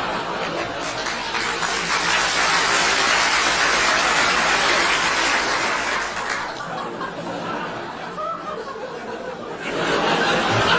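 A crowd of voices chattering and laughing together. It builds to a peak through the first few seconds, dies down about six seconds in, and swells again near the end.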